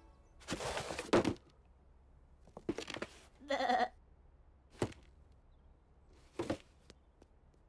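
A cartoon lamb's short bleat about three and a half seconds in. Around it come handling sounds from a cardboard box: rustles near the start, around three seconds and near the end, and a sharp tap just before five seconds.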